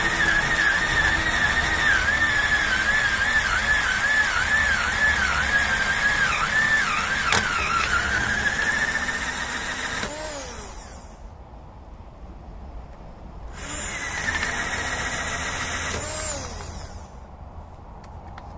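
Handheld power drill boring drain holes through a car tyre's rubber sidewall, its motor whine wobbling in pitch as the bit cuts. It winds down about ten seconds in, runs again for a couple of seconds, and winds down again.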